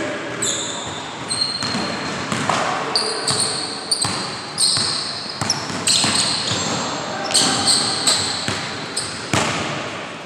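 Basketball bouncing on a hardwood gym floor during a one-on-one game, with sneakers squeaking sharply again and again as the players cut and change direction, echoing in the gym.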